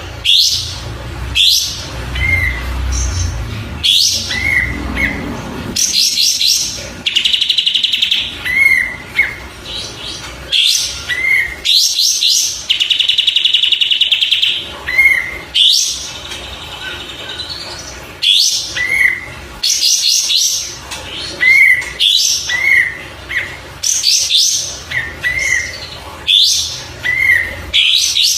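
Kapas tembak bird singing, a chain of short whistled phrases of quick falling sweeps and little arched notes, with two longer buzzy trills about a third and half way through. A low rumble runs under the first few seconds.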